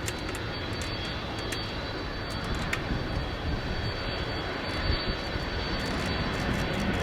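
Jet airliner engines, a steady rush with a thin high whine, growing louder toward the end as the aircraft nears.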